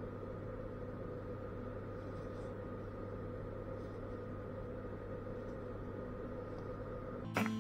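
Steady hum of a kitchen appliance, a low drone with a few constant tones over it. Near the end, acoustic guitar music starts with a strum.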